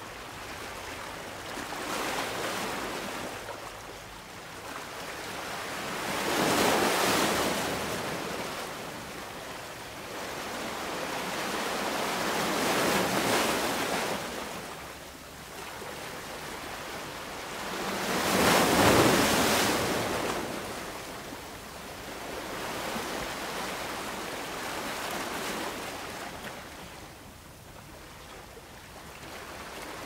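Ocean surf: waves breaking and washing in, the rush of water swelling and fading about every six seconds, two of the surges louder than the others.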